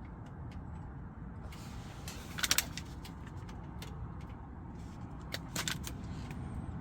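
Steady low rumble of surf from the sea, with scattered small crackles and clicks from a wood-burning stove, a short cluster about two and a half seconds in and another near five and a half seconds.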